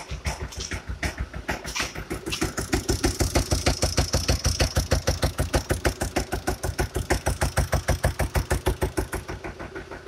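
Kia Sportage 2.0 CRDi common-rail diesel engine running with a loud, heavy rhythmic knock. The knocks quicken about two seconds in to roughly seven a second and ease off near the end. It is a severe internal engine knock, bad enough that the mechanic plans to remove the cylinder head.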